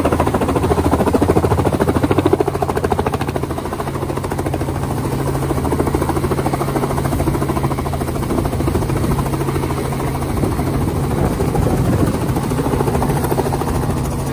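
Tour helicopter running steadily: a constant low engine and rotor drone with a fast, even beating from the blades.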